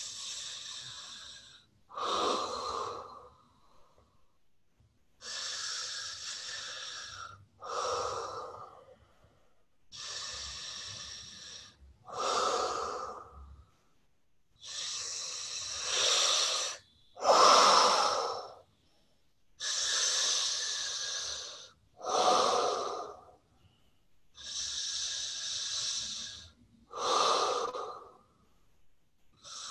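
A woman breathing long and deep through her mouth, the air passing through the gap between her thumbs pressed to her lips, with a complete inhale and complete exhale each time. Six full breaths about five seconds apart, each a long airy hiss followed by a shorter, lower, louder rush of air.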